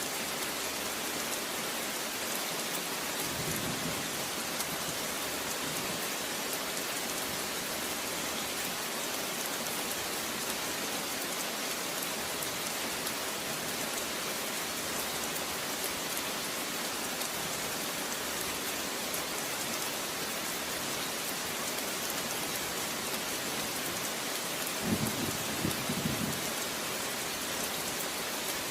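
Steady heavy rain falling, an even hiss, with a brief low rumble near the end.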